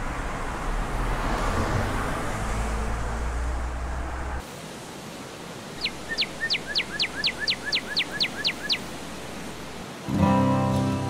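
Steady outdoor rumble of wind or distant traffic, which cuts off about four seconds in. Then a bird calls: a quick run of about fifteen short whistled notes, each sliding down, about five a second, for some three seconds. Acoustic guitar music comes in near the end.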